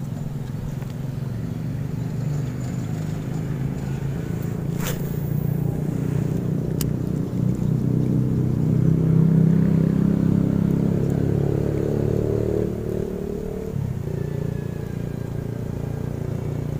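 Engine of a passing motor vehicle running steadily, growing louder to a peak about two-thirds of the way through, then easing off. Two sharp clicks sound in the first half.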